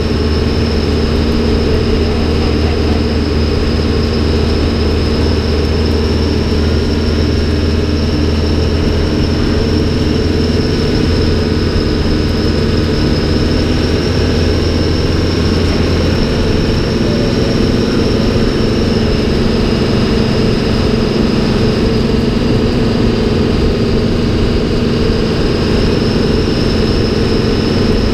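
1971 American LaFrance Aero Chief fire truck's engine running as the truck drives along, heard from inside its open cab with road and wind noise. The deep engine drone drops away about halfway through, and a steady high whine runs above it.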